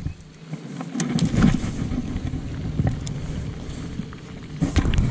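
Wind buffeting the microphone in a low, wavering rumble, with a few light knocks and clicks from handling gear on a kayak.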